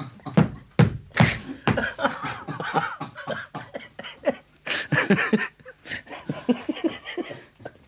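A comic sound effect of a falling leaf, made of sharp smacks and clicks mixed with mouth and voice noises. The loudest burst comes about five seconds in.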